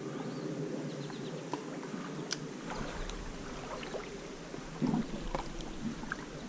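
Water sloshing and gurgling around the legs of someone wading a shallow stream, with scattered small clicks and a louder knock or splash about five seconds in.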